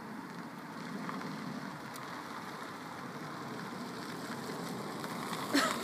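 Steady rush of passing road traffic, with a single sharp click near the end.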